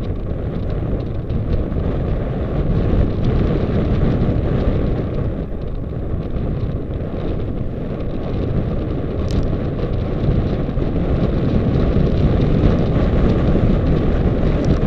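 Wind rushing over an action camera's microphone, mixed with mountain bike tyres rumbling on a gravel track while riding downhill: a loud, steady rush with one sharp click about nine seconds in.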